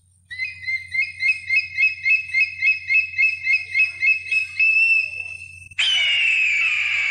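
Bald eagle calling: a rapid series of high chirping notes, about four a second, ending in a short held note, then a louder, harsher screech that falls slightly in pitch near the end.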